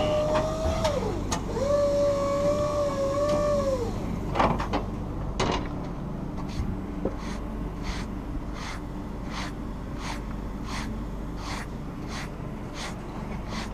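A forklift's motor whining in two stretches of a few seconds, its pitch wavering. Then a hand brushes sawdust off a freshly cut beech slab in regular scratchy strokes, about one every 0.7 seconds.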